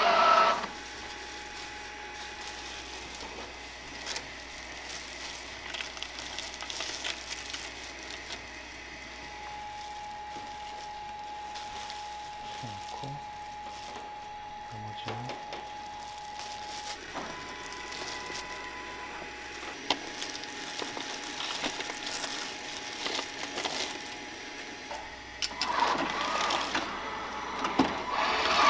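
Lucky ENG gimbap machine's motor and conveyor belt running, cutting off within the first second. Low room noise with small clicks and a faint steady hum follows, until the machine starts running again about three seconds before the end.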